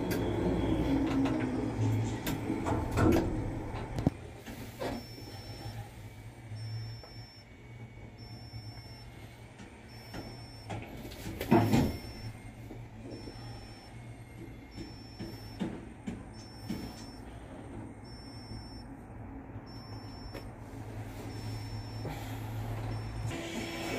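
Work-site sound while rebar is unloaded from a flatbed truck: a steady low engine hum with a few metal knocks and clanks, the loudest about halfway through, and a faint high beep repeating a little faster than once a second.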